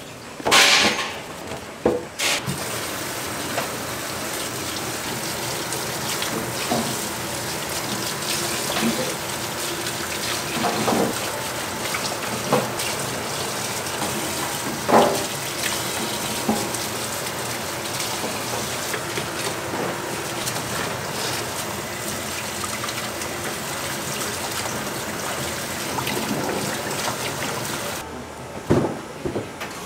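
Oil in a deep fryer sizzling steadily, with a few sharp knocks and clinks of utensils.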